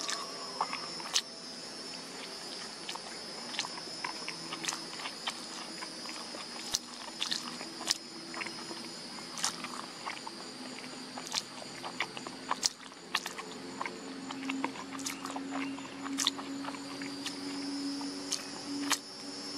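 Steady high-pitched insect chirring, with scattered sharp clicks throughout and a low steady hum in the second half.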